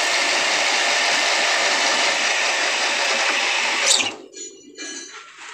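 Power tool sanding a metal ball joint part, a steady hissing run that cuts off about four seconds in. It is followed by a few light knocks and handling sounds.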